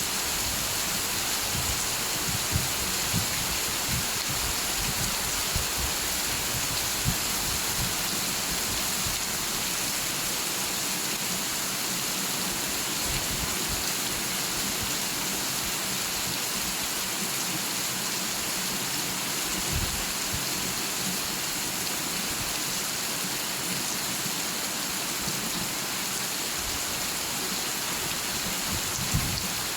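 Steady rain falling, an even hiss with a few sharper drop hits in the first several seconds and again near the end.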